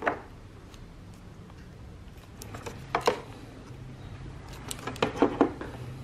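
Plastic OBD diagnostic connector and its cable being handled and plugged into a motorcycle's diagnostic port. There are short clicks and rattles at the start, about three seconds in, and a cluster about five seconds in, over a faint low hum.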